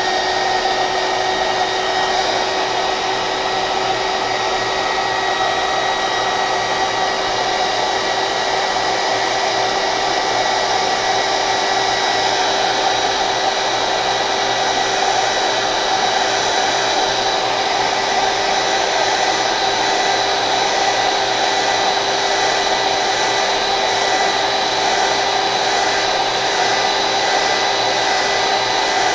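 Handheld hot air gun (heat gun) running steadily, drying wet watercolor paint: an even rush of blown air with a constant whine.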